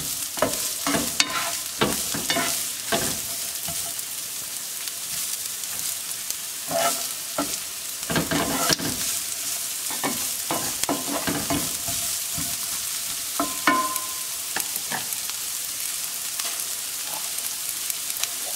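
Sliced onions sizzling in olive oil in a nonstick frying pan as they cook down, with a spatula scraping and stirring them now and then, most often in the first half.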